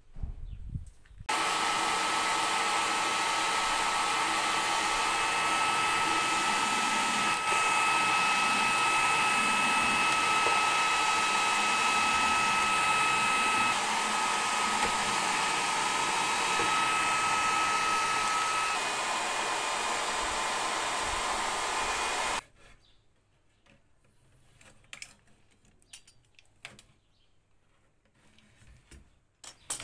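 Handheld hot-air blower running steadily on the mandolin's wooden top: a rush of air with a high steady whine. It starts about a second in and cuts off about 22 seconds in. Faint clicks and taps of handling follow.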